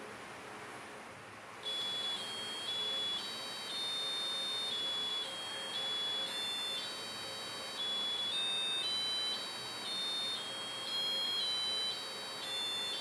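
BBC micro:bit sounding a sequence of high electronic beeps, buzzy in tone, stepping back and forth between two or three pitches with each note held about half a second to a second. The beeps begin about two seconds in, after a moment of faint hiss.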